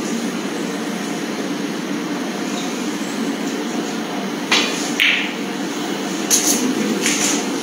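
Snooker balls being struck over a steady background hum. About four and a half seconds in, the cue tip hits the cue ball, and half a second later the cue ball clicks sharply against the blue. A few more sharp knocks follow near the end.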